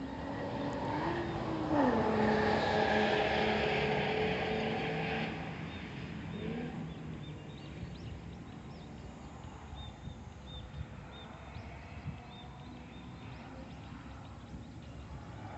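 A car drives past. Its engine note drops sharply in pitch as it goes by, then fades away.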